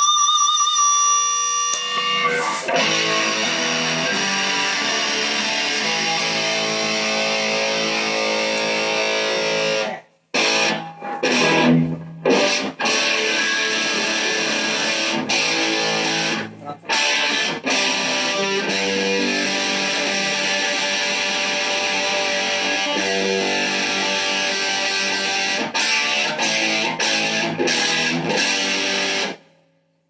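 Ibanez JS1CR electric guitar played plugged in: a few held, wavering notes at first, then continuous lead playing that breaks off briefly twice, about ten and sixteen seconds in, and stops just before the end.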